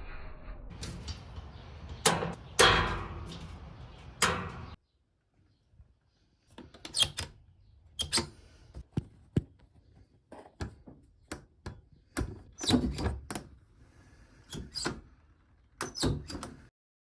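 Magnetic mesh screen curtain being handled, its magnets snapping together in a series of sharp clacks and knocks. Two louder knocks come about 2 and 3 seconds in, and the clacks are spread out over the second half.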